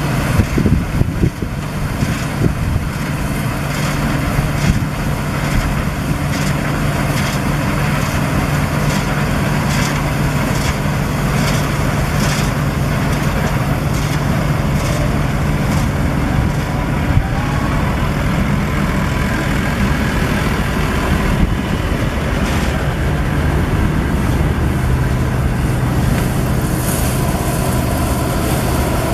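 Claas Dominator 96 combine harvester's diesel engine and threshing gear running steadily under load, a constant low hum, with a few knocks and rattles in the first couple of seconds.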